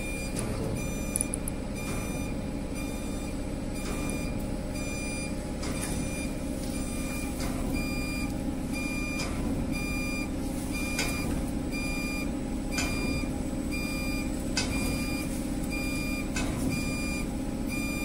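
Wheel repair CNC lathe running with a steady hum, while a short, high electronic beep repeats about once a second; a few faint clicks are heard.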